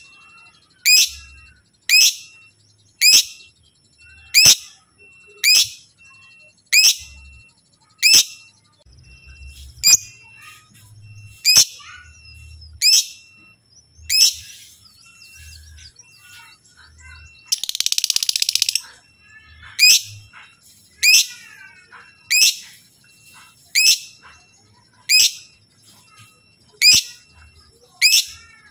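A lovebird giving loud, shrill, sharp calls about once a second in a steady series. A softer, scratchier chatter comes in the middle, and a harsh, rasping call of over a second comes about two-thirds of the way through.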